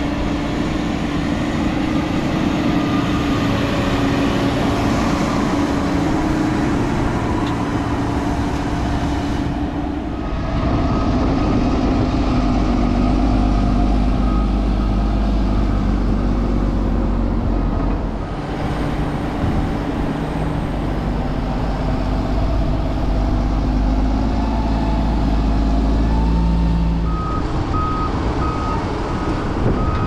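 Large diesel tractor engines working under load while pushing and hauling chopped corn silage on a silage pile. Near the end a reversing alarm starts beeping steadily over the engine sound.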